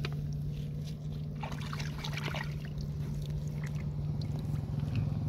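Hands groping and splashing in shallow muddy water, with small splashes and trickling as the water is stirred, thickest about two seconds in, over a steady low hum.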